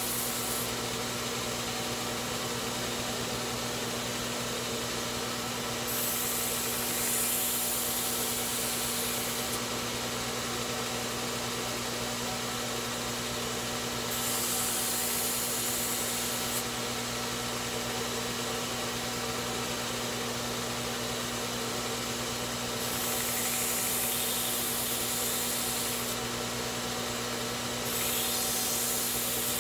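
Belt grinder running steadily with a constant motor hum, while a forged pipe tomahawk head is pressed against the belt in four passes of two to three seconds each, each adding a hissing grind over the running noise.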